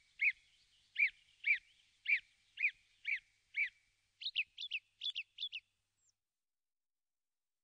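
Repeated animal calls: a short falling note about twice a second, then a quicker run of higher notes that stops about six seconds in.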